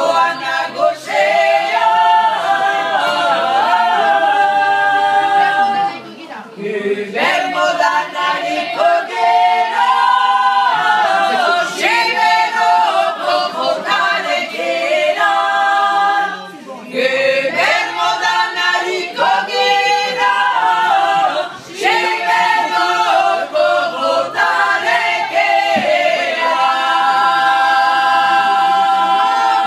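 A group of women singing a Basque song together a cappella, in phrases broken by brief pauses, ending on a long held note.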